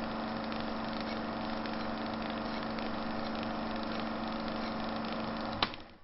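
A steady, even drone with a constant low hum, like a motor running, that stops with a sharp click near the end.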